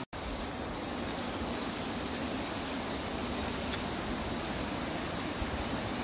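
Steady rushing outdoor background noise, with no distinct event, broken by a split-second dropout right at the start.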